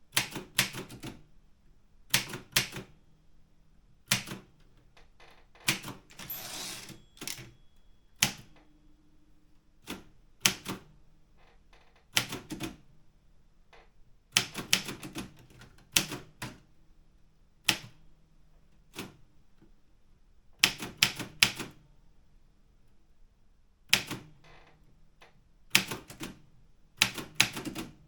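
Optima Elite 3 manual typewriter being typed on: sharp key strikes in short irregular bursts, with pauses of a second or two between groups.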